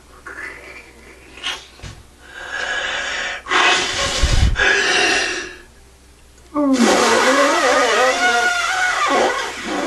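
A person's voice making loud, wordless vocal noises for a sock puppet, in two long outbursts, the second with a wavering, bending pitch.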